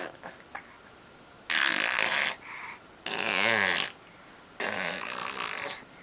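A baby making farting noises: three loud, buzzy bursts, each under a second long, the middle one carrying a wavering voiced pitch.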